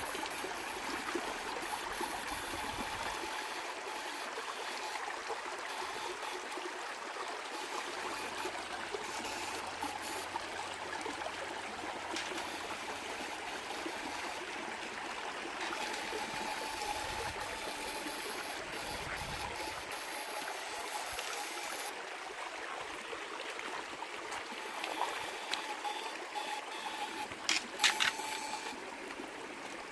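Water of a stream at a waterfall running steadily over rocks, an even rushing flow. A few sharp clicks stand out near the end.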